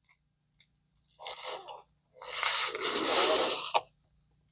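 A person breathing out hard twice through the mouth or nose: a short puff, then a longer, louder exhale like a heavy sigh.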